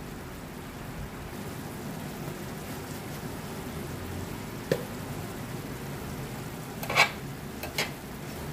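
Braising liquid of small fish simmering and sizzling in a metal wok with a steady hiss, the sauce reducing down to dry. A few sharp clicks cut through it, the loudest about seven seconds in.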